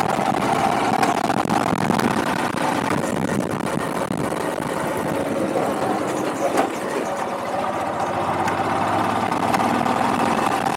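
Motorcycle engine running steadily while being ridden, with road noise.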